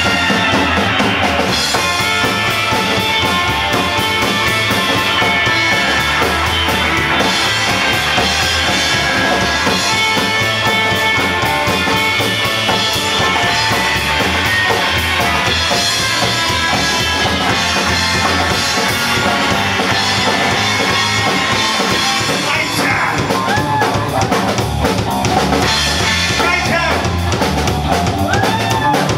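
Live rock band playing an instrumental passage: a drum kit, electric bass and electric guitar, loud and steady, with lead notes bending in pitch over the last several seconds.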